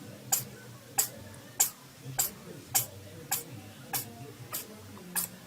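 A cat sneezing in a rapid fit: short, sharp, hissy sneezes coming evenly, about nine of them, well under a second apart.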